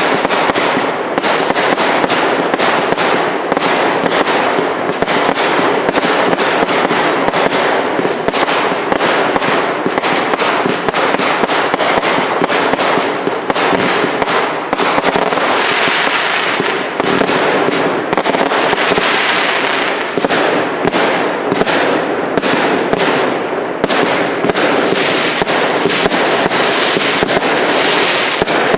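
Cake fireworks display: a rapid, unbroken string of bangs from shots firing and bursting overhead. Around the middle and again near the end there are stretches of denser hissing crackle.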